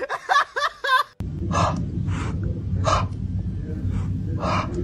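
Small fluffy white puppy yapping in short, repeated yips, about one every three-quarters of a second, over a steady low hum.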